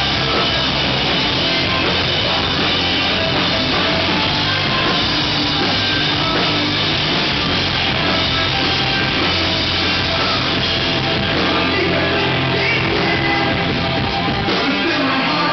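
Rock band playing live and loud: electric guitars, bass guitar and drum kit.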